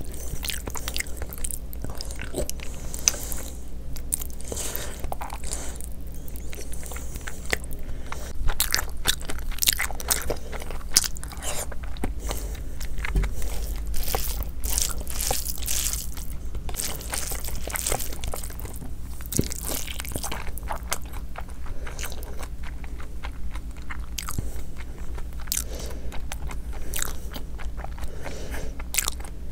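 Close-up mouth sounds of a person eating mutton curry, mutton fat and rice by hand: irregular crunching, biting and wet chewing and smacking.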